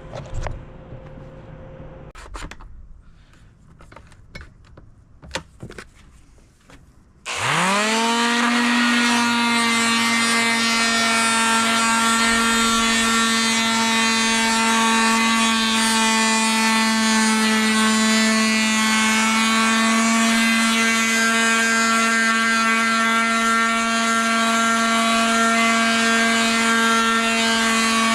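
A few light clicks and knocks, then about seven seconds in an electric sander switches on, its motor whine rising quickly and settling into a loud steady pitch as it runs on a piece of pecan wood.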